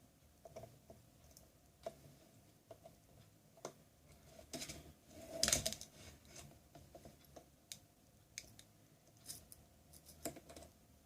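Small clicks and short scrapes of tools and fingers working loose a tablet's internal speakers and plastic parts, a dozen or so light ticks scattered through, with a louder scraping rustle about halfway.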